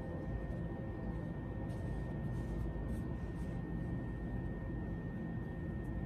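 Steady low background rumble with a faint constant high whine, and faint soft rubbing as fingertips press a crocheted lace butterfly into a slab of clay.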